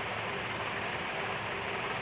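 Steady hiss with a faint low hum throughout, with no distinct knocks or clicks.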